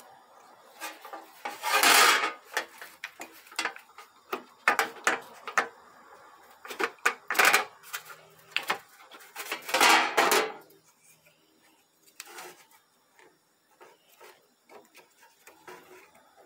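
Hands working on a 6T40 automatic transmission valve body and its solenoid block on a sheet-metal drip tray. Plastic and metal click, rub and scrape, with three louder scraping noises about 2, 7 and 10 seconds in, then only faint small clicks.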